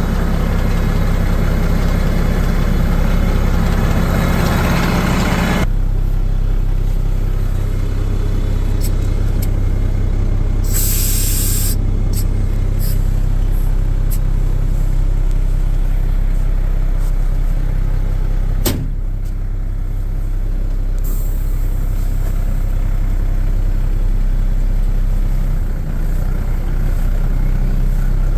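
Mack 11.9-litre inline-six diesel in a concrete truck running: faster and louder for the first several seconds, then dropping back to a steady idle. About eleven seconds in there is a short hiss of released air, and later a single sharp click.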